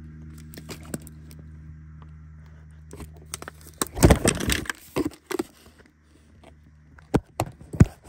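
Close-up handling of a spent firework cake's cardboard box: scattered clicks and taps, a burst of rustling and crackling cardboard about four seconds in, then a few sharp knocks, the last ones near the end. A steady low hum sits under the first half.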